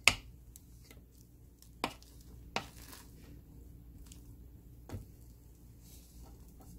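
A rice paddle knocking and scraping against the inner pot of an electric pressure cooker as freshly cooked sticky multigrain rice is turned over. Four sharp knocks a second or two apart, the first the loudest.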